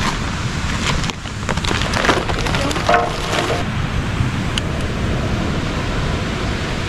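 Charcoal heat beads clattering and clinking into a steel box barbecue, a quick run of clicks over a couple of seconds with a few short metallic rings. After that comes a steadier hiss from a butane torch lighter held to the beads to light the coals.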